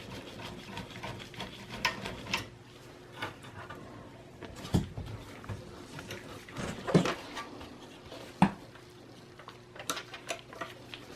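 Scattered light clicks and knocks of hands handling a Dell OptiPlex small form factor desktop's case and internal parts, with sharper knocks about five, seven and eight and a half seconds in.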